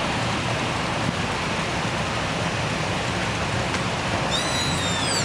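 A line of classic and muscle cars rolling slowly past, their engines and tyres making a steady wash of noise. Near the end there is a brief high-pitched squeal that falls in pitch.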